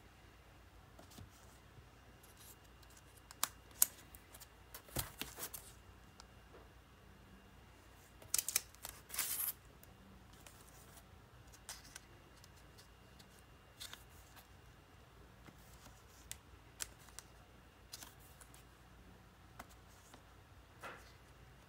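Vinyl LP record jackets being handled and flipped forward one by one: scattered light taps and clicks of cardboard, with short sliding rustles about five seconds and eight to nine seconds in.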